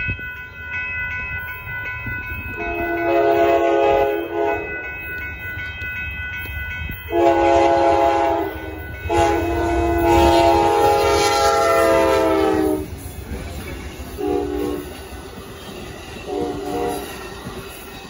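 Amtrak locomotive's multi-note air horn sounding for a grade crossing: a long blast about three seconds in, two more long blasts between about seven and thirteen seconds, then two short toots near the end. Under it the crossing bell rings steadily and the approaching train rumbles.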